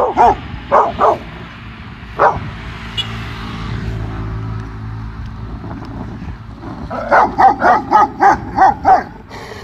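Dogs barking in a territorial standoff: a few single barks at first, then a quick run of about a dozen barks near the end, with low background noise between them.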